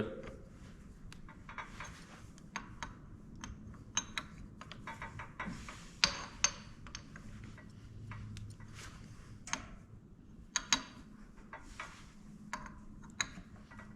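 Irregular light metallic clicks and clinks, a few with a brief high ring, of hand tools and metal parts being handled and set down.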